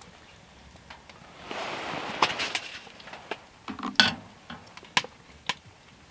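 Pike fillets going into a small pan of boiling water and butter on a woodstove: a brief hiss about a second and a half in, then a series of clinks and knocks of a utensil against the pan, the loudest about four seconds in.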